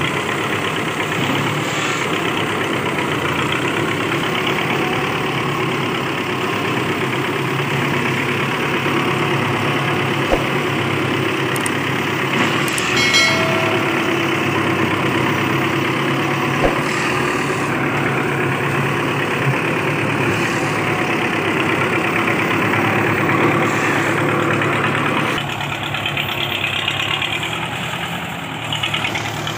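Belarus 510 tractor's diesel engine running steadily, heard close to the engine bay. About 25 seconds in it becomes quieter and more distant.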